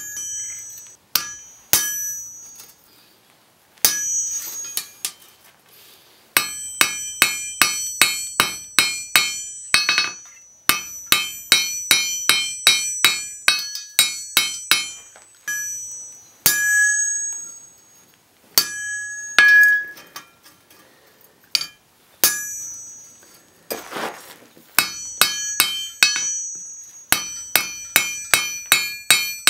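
Hammer blows on red-hot steel over an anvil, struck through a spring fuller, in quick runs of about three blows a second with short pauses between. Each blow rings out with clear metallic tones.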